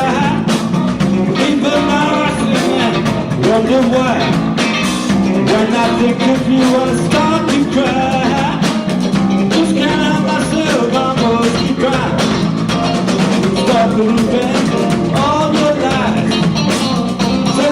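Live rock band playing a song, with drum kit and guitar at a steady, full level.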